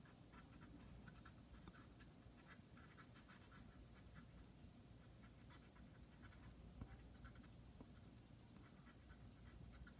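Blue colored pencil scratching faintly on paper in quick, irregular back-and-forth shading strokes.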